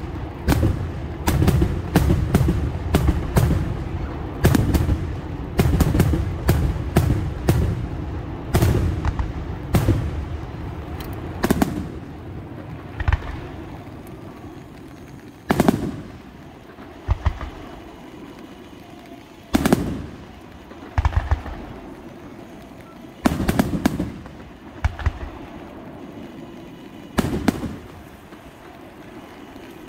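Aerial firework shells bursting in rapid succession, about two bangs a second, then thinning out about twelve seconds in to single bangs every few seconds.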